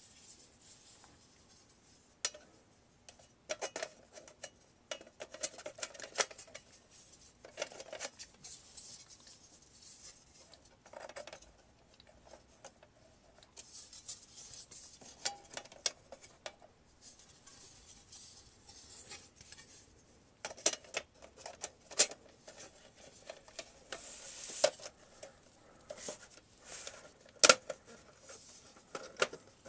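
Irregular small clicks, taps and rubbing from hands handling and fitting the plastic and metal parts of a DVD recorder, with one sharper click near the end.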